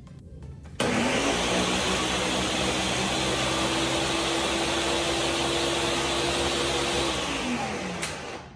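Countertop blender motor starting abruptly about a second in and running steadily at full speed, pureeing watermelon chunks into liquid for agua de sandía. It winds down with a falling pitch near the end, with a sharp click just before it stops.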